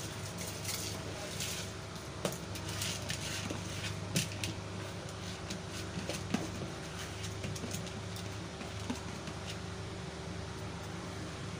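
Soaked basmati rice pouring into a pot of boiling stock, with a hiss in the first second or two. A steady low hum runs under it, with scattered light clicks from the pot.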